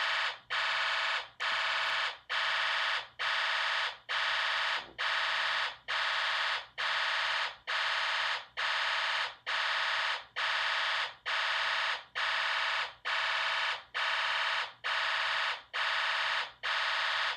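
Fire alarm sounding a buzzing tone in evenly spaced pulses, about one and a half a second, repeating without a break.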